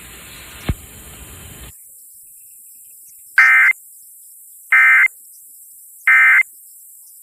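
Emergency Alert System end-of-message data tones received over FM radio: three short, identical buzzy digital bursts about 1.3 seconds apart, marking the end of the alert broadcast. Before them, radio hiss with a single click, which drops away about two seconds in.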